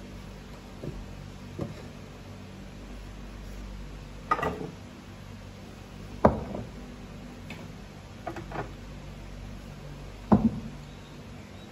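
Irregular sharp ticks and knocks from a frying pan on an electric coil stove as it heats, about eight in all, the loudest near the middle and near the end, over a steady low hum.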